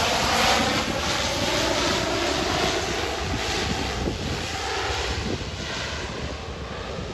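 A de Havilland Canada DHC-3T Turbine Otter floatplane's turboprop engine and propeller droning as it flies past on approach. The pitch falls slowly and the sound fades as the aircraft moves away, with some wind rumble on the microphone.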